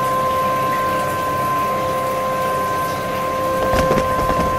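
Shower running, a steady hiss of water spray with a steady hum under it. A few knocks come about four seconds in.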